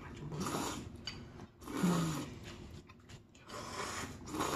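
Someone slurping noodles in spicy soup: three noisy slurps about a second and a half apart.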